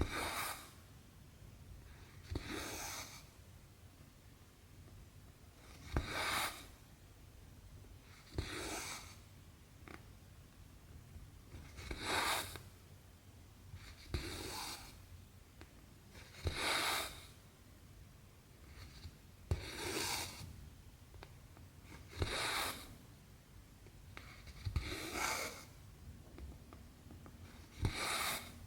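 Cotton embroidery floss drawn through cross-stitch fabric, a short rasping pull about every two to three seconds, some with a small click from the needle just before.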